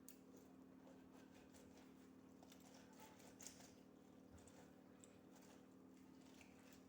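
Near silence: a steady low hum with a few faint scattered clicks and taps, the clearest about three and a half seconds in.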